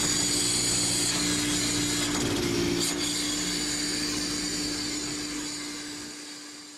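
Hydraulic crane and deck machinery of a Danish seine fishing boat running with a steady hum and hiss while the net bag of catch is hoisted, fading out near the end.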